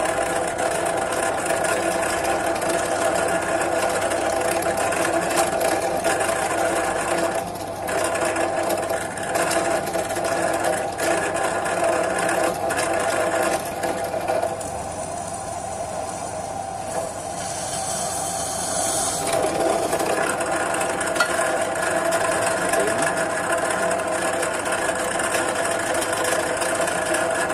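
Bench drill press running steadily, its motor giving a constant hum, while a 4 mm twist bit drills holes in a square hollow steel tube. The sound changes briefly a little over halfway through.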